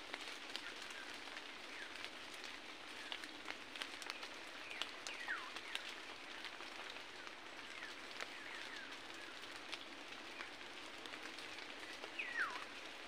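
Faint forest ambience with birdsong: a whistled call that slides down in pitch is heard twice, about five seconds in and near the end, over scattered soft chirps and light ticking.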